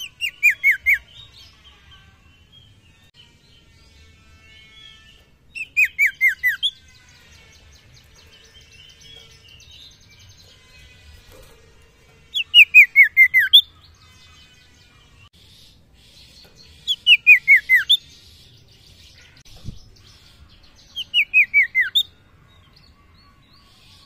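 Common iora (sirtu) singing five short phrases a few seconds apart, each a quick run of four to six whistled notes stepping down in pitch. Fainter chirps sound between the phrases.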